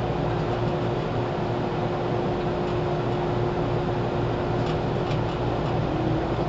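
413 series electric multiple unit heard from inside its motor car, running steadily along the track: a low rumble under a constant hum, with a couple of faint rail-joint clicks about five seconds in.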